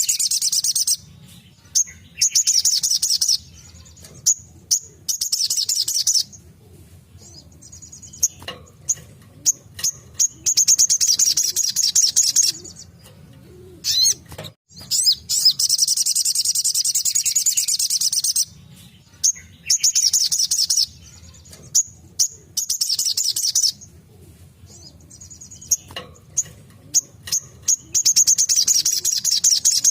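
Sogok ontong (little spiderhunter) singing its rapid-fire 'tembakan' song: high-pitched, fast trilled bursts of one to five seconds, broken by short pauses with single sharp chirps. A faint low hum runs underneath.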